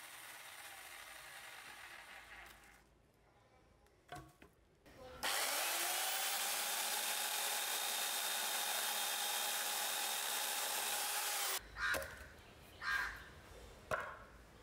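IBELL EC16-18 1800 W electric chainsaw starting up about five seconds in, its motor pitch rising briefly and then running steadily at full speed. It stops abruptly about six seconds later.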